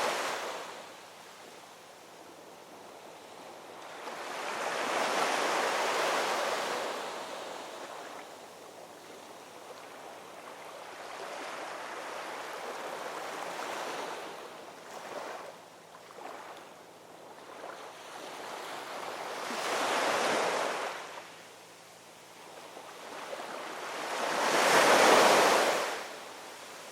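Ocean surf: waves rolling in and breaking one after another, each swelling and fading over a few seconds, with the loudest break near the end.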